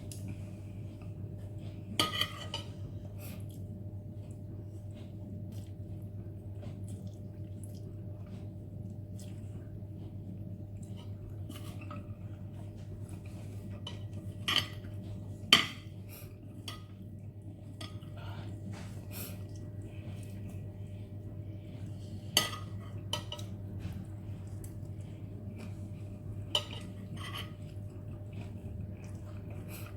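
Utensils clinking against a noodle bowl now and then during a meal of instant noodles, a handful of sharp clinks with the loudest about halfway through, over a steady low hum.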